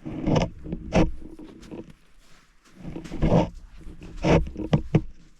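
A person breathing hard and rough close to the microphone while hiking uphill in snow, in irregular heavy gasps about once a second.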